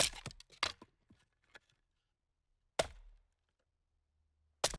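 A series of sharp knocks and clacks: several quick ones in the first second and a half, then a louder knock about three seconds in and another near the end.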